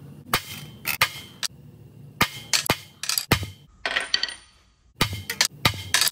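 Metal tools clinking and tapping against a dimpled aluminium baffle plate and a steel welding table: about fifteen sharp, irregular knocks, some ringing briefly, with a short pause just before five seconds in.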